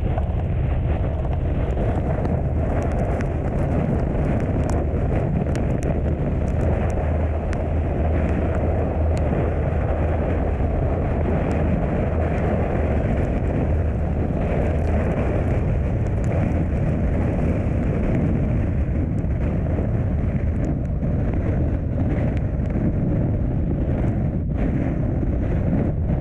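Steady wind noise and low road rumble from a vehicle driving on a wet highway in heavy rain, with scattered sharp ticks of raindrops striking.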